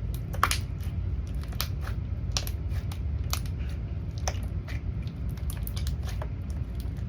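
Slime being squished in the hands, its trapped air bubbles popping in sharp, irregular clicks about one or two a second, over a low steady hum.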